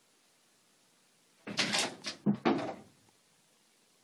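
A cat leaping against a closet door: about a second and a half in, a quick run of thuds and rattles from the door, lasting about a second.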